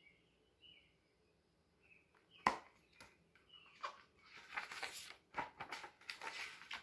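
A hardcover picture book handled close to the microphone: a sharp knock, then a stretch of rustling and scraping of paper and cover as the book is lowered.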